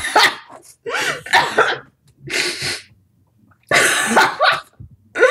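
A person laughing hard in several breathy, wheezing bursts, with a short pause in the middle.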